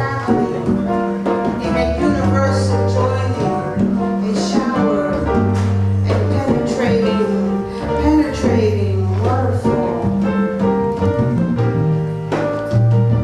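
Instrumental music from a trio of piano, bass and percussion. The bass holds long low notes while the piano plays pitched notes above, with short percussion strikes throughout.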